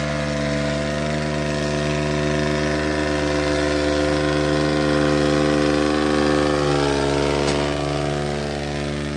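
New Holland 3630 tractor's diesel engine running steadily under load as it pulls a trolley piled high with sugarcane through a field. Its pitch dips briefly about seven seconds in.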